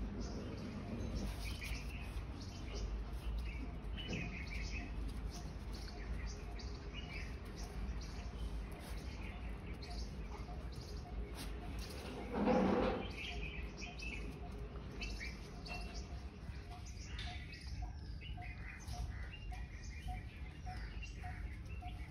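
Small birds chirping and twittering in the background, with one short, loud cry a little past halfway through.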